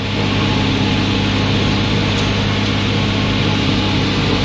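Tractor engine running steadily under load, pulling a pull-type forage harvester that is chopping corn: an even, unbroken drone with a low hum and a dense whirring wash over it.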